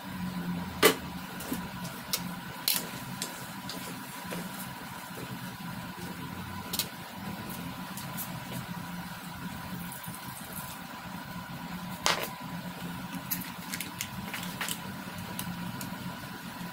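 Aluminium wok lid clanking as it is lifted off and set down about a second in, with another sharp metal knock about three-quarters of the way through and lighter clicks of cookware between, over a steady low hum.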